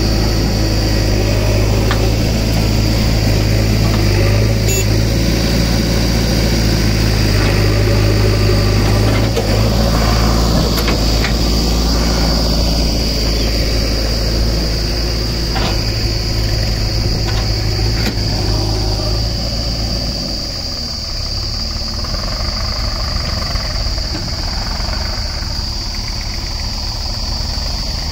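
Diesel engines of a JCB backhoe loader and a tractor running steadily at idle. The deep, steady engine hum drops away about twenty seconds in, leaving a lighter, rougher engine sound, with a steady high-pitched hum over it throughout.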